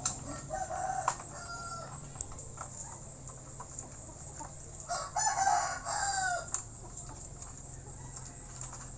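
A rooster crowing, loudest about five seconds in with a call of about a second and a half that falls in pitch at its end, after a fainter call near the start. A couple of sharp knocks come in the first second or so.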